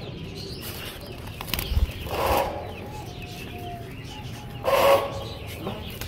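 Birds in an aviary: two short, loud bird sounds about two and a half seconds apart, with a faint thin call between them.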